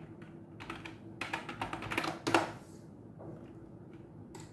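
Typing on a computer keyboard: quick runs of key clicks in the first half, then a lull and a single click near the end.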